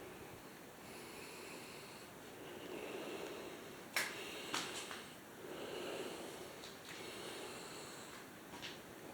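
Soft, slow breathing close to the microphone in a small, empty room, with a sharp crack about four seconds in and a few fainter clicks after it.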